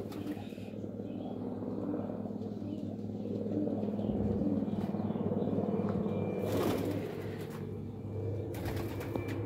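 Domestic pigeons cooing continuously in low, pulsing tones, with short rustles of wing flapping about two-thirds of the way through and again near the end.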